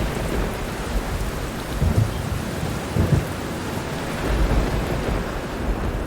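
Steady rain with thunder rumbling low underneath, swelling about two and three seconds in and again past four seconds.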